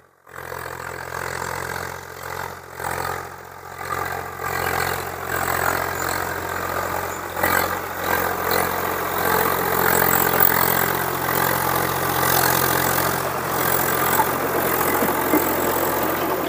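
Swaraj 735 XT tractor's three-cylinder diesel engine running steadily under load while its Garud rotavator churns wet soil. The sound grows louder over the first several seconds as the tractor comes close.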